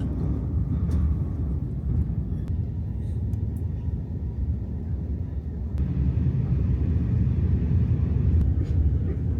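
Steady low rumble of a moving passenger train heard from inside the carriage. The noise shifts a little about six seconds in.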